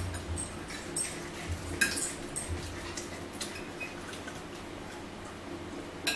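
Forks clicking and scraping against dinner plates while eating, a dozen or so scattered light clinks, over a faint steady low hum.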